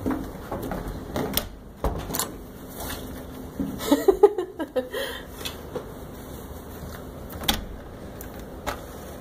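Scattered clicks and knocks from a hotel room door's lever handle and latch being handled, with a louder cluster of sounds about four seconds in.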